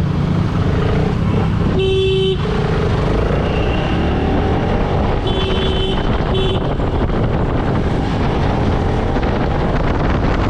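Motorcycle engine running with road and wind noise while riding through slow town traffic, and a vehicle horn honking: one half-second honk about two seconds in, then two short honks of the same pitch around six seconds in.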